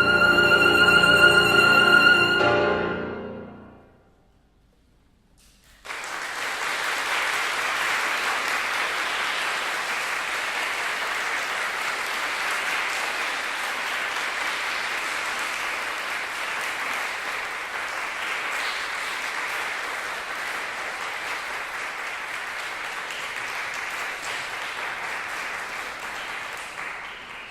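Alto saxophone and piano end on a held final note that dies away over a few seconds. After a brief silence, audience applause starts suddenly and keeps on steadily, fading near the end.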